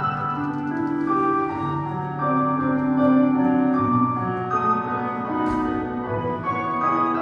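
Classical piano music with held notes changing every second or so, played as accompaniment for ballet exercises. A short burst of noise comes about five and a half seconds in.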